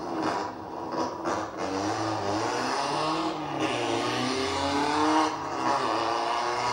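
Rally car's engine revving hard as the car accelerates out of a bend, rising in pitch through the gears with a break at each gear change.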